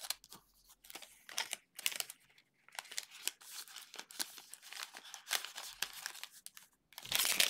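Gold foil wrapper of a 2022 Panini Gold Standard football card pack crinkling in the hands as the stack of cards is worked out of it, in short scattered crackles, with louder, denser crinkling near the end.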